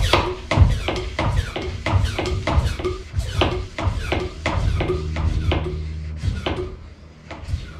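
A metal hand tool clicking and clinking against engine parts in a quick irregular run, about three knocks a second, over a low steady hum. It is typical of working bolts loose on an engine being stripped out of a boat.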